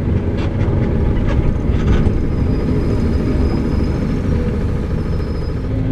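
Mercedes-Benz OF-1722 bus's diesel engine running steadily under way, heard from inside the passenger cabin with road rumble and a few brief rattles. A faint high whistle comes in partway through.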